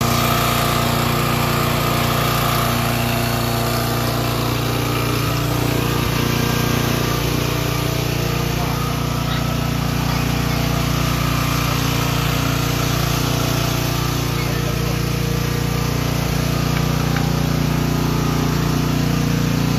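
Small gasoline engine of a pressure washer running at a steady speed.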